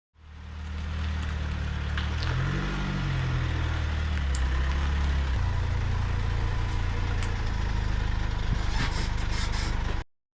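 Steady low engine hum, like a vehicle idling, fading in at the start and shifting in pitch about three and five seconds in, with a few light clicks; it cuts off abruptly near the end.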